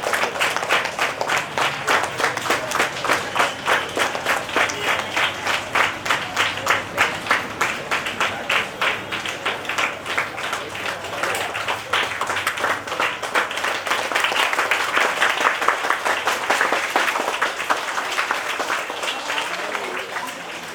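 A crowd clapping together in a steady rhythm, about three claps a second. Later it loosens into ordinary applause that fades near the end.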